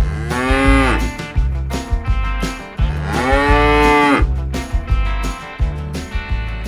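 A cow mooing twice, a short moo and then a longer one about two seconds later, each rising and then falling in pitch, over background music with a steady beat.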